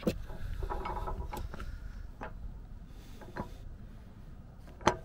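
Steel D-ring recovery shackle and its hitch-receiver mount clinking and knocking as they are shaken by hand. A handful of scattered metal knocks, the sharpest near the end.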